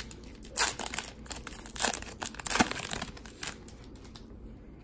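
Panini Contenders football card pack's wrapper crinkling and tearing as it is ripped open by hand, in irregular crackles that die down after about three and a half seconds.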